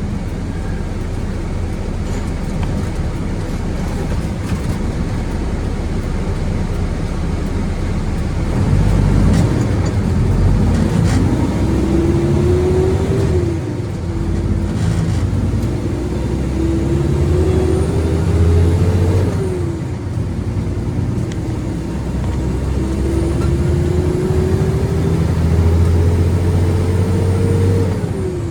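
Concrete mixer truck's diesel engine pulling away and accelerating through the gears: the revs climb and drop sharply at three upshifts.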